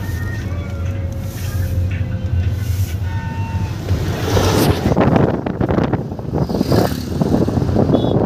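Car cabin noise while driving at highway speed: a steady low drone from the Volkswagen's engine and tyres. From about halfway, a loud rushing, gusting wind noise takes over as the microphone goes to the open side window.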